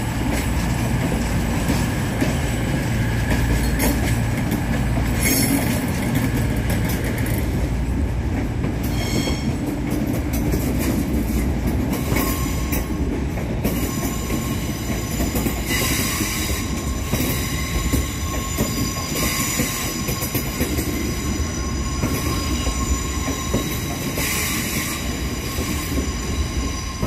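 Passenger trains pulling out of the station, their running gear giving a steady low rumble. High-pitched wheel squeal comes and goes several times, with short clicks of wheels over rail joints, and a steady whine joins about halfway through.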